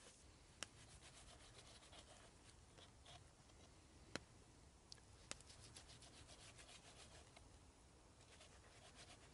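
Small knife slicing pork fat on a wooden log round: faint, repeated cutting and scraping strokes, with a few sharper ticks as the blade meets the wood.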